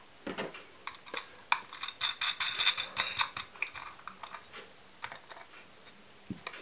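Steel washers and a nut clicking and clinking on an M8 threaded screw as they are fitted by hand. A scatter of light clicks, with a quick run of metallic clinks and a brief ring about two seconds in.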